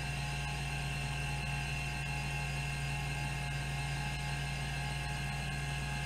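Rodime RO252 ST-412 hard drive spinning at 3600 RPM while its band-driven stepper actuator seeks back and forth across the tracks without pause: a steady whirring hum with a continuous stepping buzz.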